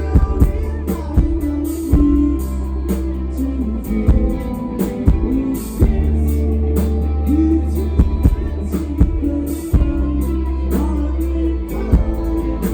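Indie rock band playing loud, with electric guitars, bass, a drum kit hitting hard every second or so, and singing, with a heavy booming low end.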